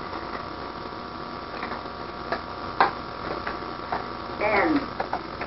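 Steady electrical hum on a home-camcorder recording, with a few scattered sharp clicks and knocks. A brief falling-pitch vocal sound about four and a half seconds in.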